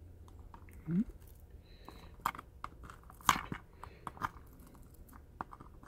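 A thin metal pick scraping and prying under the rubberized grip pad on the back of a Nikon Coolpix P5100 body, with a scatter of small irregular clicks and crunchy scratches, the sharpest about three seconds in.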